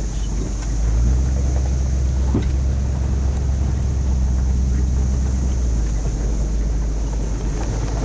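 A vehicle driving, its engine and road rumble low and steady as heard from inside the cab. A faint, steady high buzz of a periodical cicada chorus (Magicicada cassini) sits behind it.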